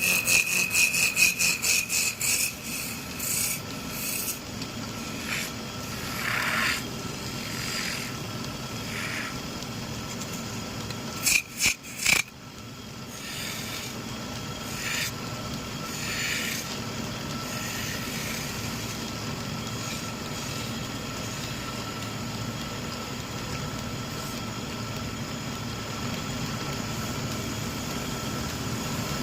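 Hand tool scraping on wood in quick strokes, about four a second for the first few seconds, then in scattered strokes with a loud burst of three about eleven seconds in, over a steady low hum.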